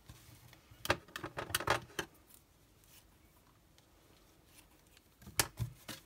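Scissors cutting ribbon and the ribbon and card being handled: a cluster of short clicks and rustles about a second in, then a couple of sharp snips near the end.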